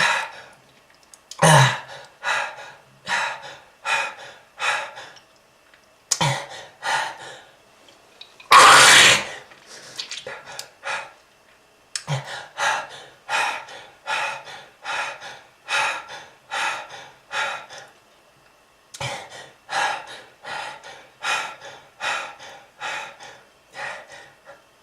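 A smoker coughing over and over in several fits of short, hacking coughs, about one to two a second. One longer, louder burst comes about nine seconds in.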